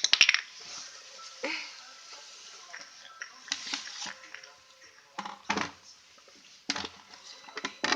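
Plastic drink bottle being handled, knocking and crinkling in scattered, irregular bursts a second or two apart.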